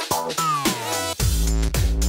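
Electronic background music: synth tones sliding down in pitch, then a heavy bass comes in a little over a second in.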